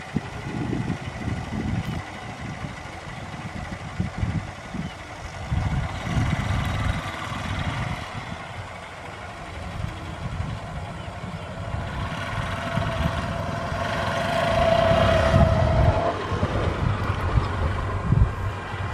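Diesel locomotive hauling a passenger train as it approaches: an uneven low rumble that grows louder from about halfway through, with a steady higher tone held for a few seconds about two-thirds of the way in.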